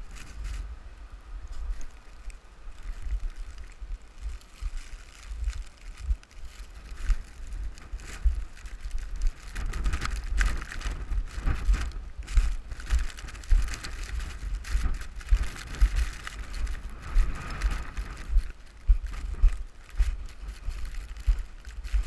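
Blizzard wind buffeting the camera microphone: a heavy, gusting rumble that never lets up, with a louder hissing stretch in the middle.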